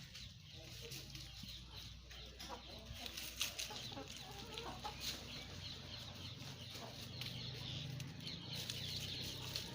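Hen clucking intermittently, with scattered short clicks, over a steady low hum.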